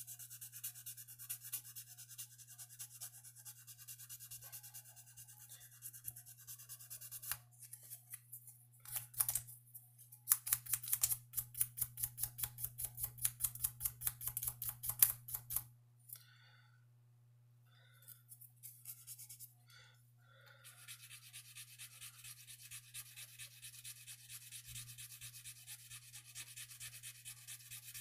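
Small piece of abrasive rubbed back and forth on the metal bolster of a slipjoint pocketknife: a rhythmic scratching of several quick strokes a second, working nicks and dings out of the metal. The strokes grow louder past the middle, stop for a few seconds, then go on steadily.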